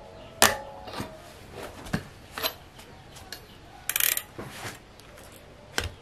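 Metal clinks and clanks from a wrench on a cassette lockring tool and a bicycle's steel cassette being slid off the rear hub's freehub. About half a dozen separate clicks, the loudest about half a second in with a short metallic ring, and a brief jangle of sprockets about four seconds in.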